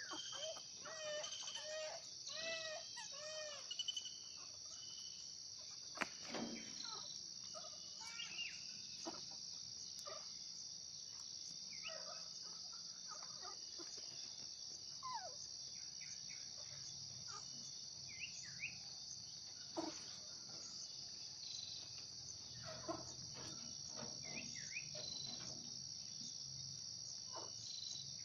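Steady high-pitched buzz of an insect chorus, with scattered short calls that rise and fall in pitch, a quick run of them in the first few seconds, and a sharp click about six seconds in.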